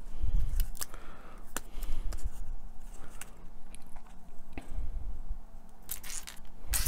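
Backing paper being peeled off a thin wooden deck panel: irregular crackles and small clicks, with a few soft knocks as the piece is handled.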